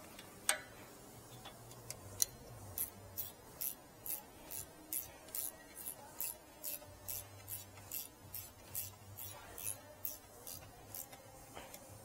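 Ratcheting wrench clicking in an even rhythm, about two to three clicks a second, as a rear brake caliper bolt is turned. A single sharper click comes about half a second in.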